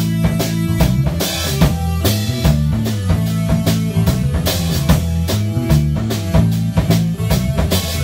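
Rock music playing: a drum kit keeps a steady beat of kick and snare over a moving bass line.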